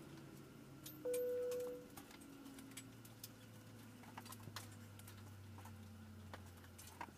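Inside an airliner cabin at the gate: a single cabin chime rings about a second in and fades, as the seatbelt sign goes off. Under it the jet engines are spooling down, their hum slowly falling in pitch, with scattered light clicks and rattles in the cabin.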